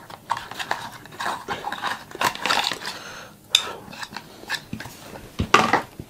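Small cardboard box being torn open by its pull strip and the cable inside unpacked by hand: irregular rustling and scraping with small clicks, and a sharper knock near the end.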